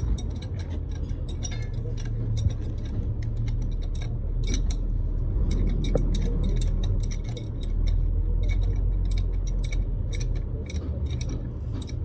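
Frequent light metallic clinks and taps over a steady low machine hum.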